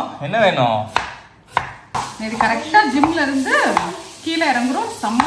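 Kitchen knife slicing onions on a wooden chopping board, with sharp knocks of the blade on the wood. High, wavering children's voices sound over it for much of the time.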